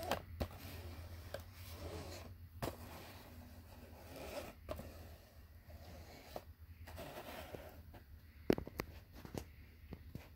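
Cardboard box being handled and turned over in the hands, its surface rubbing and scraping against skin, with a few sharp taps and knocks, the loudest about eight and a half seconds in.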